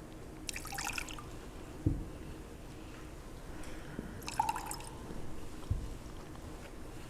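Small clinks and clicks of communion vessels being handled, in two short clusters, one with a brief ring, along with two soft low thumps.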